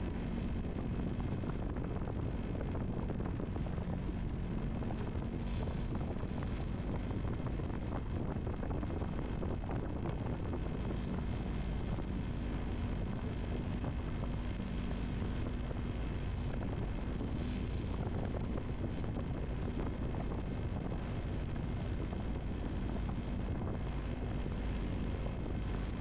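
A small boat's motor running steadily under way, with wind rushing over the microphone.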